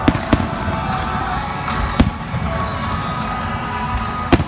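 Aerial firework shells bursting with sharp bangs, two in quick succession at the start, one about two seconds in and one near the end, over music that plays throughout.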